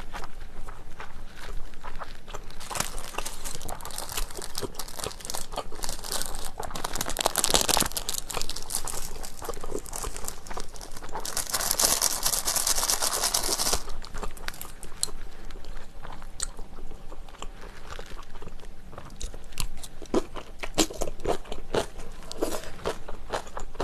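Close-miked eating: chewing and smacking on chewy glass noodles, with small clicks throughout. About halfway through, a small packet rustles for two or three seconds and then stops suddenly.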